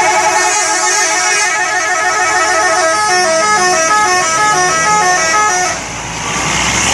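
Subur Jaya bus's musical multi-tone horn (a 'telolet' horn) playing a repeating tune of quick stepped notes, loud, stopping about five and a half seconds in. A hiss with the low sound of the engine follows.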